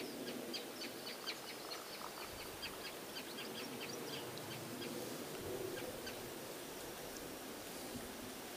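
Small birds chirping: quick, high, short notes of varying pitch, thick at first and thinning out after about three seconds, over a faint steady background hiss.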